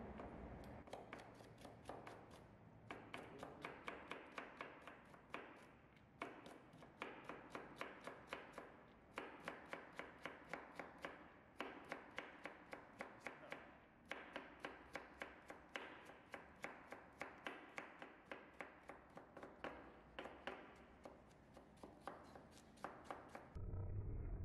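Kitchen knife julienning a carrot on a plastic cutting board: quick, even knife taps, about four a second, in runs of a few seconds broken by short pauses.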